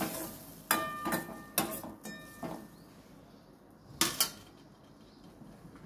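A metal spatula clinking and scraping against a thin steel kadai while stirring wet masala, with several ringing clinks in the first two seconds. Two quick sharp knocks follow about four seconds in.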